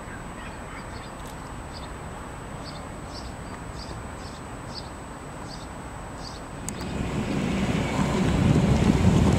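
Faint steady background noise with a soft, high chirp repeating about twice a second, then about two-thirds of the way in, a sudden switch to loud wind buffeting the microphone, a low rumble that dominates to the end.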